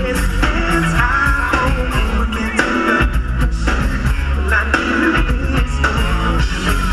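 Live rock band playing: electric guitars, keyboards, bass guitar and drum kit together at full volume, with a heavy bass line.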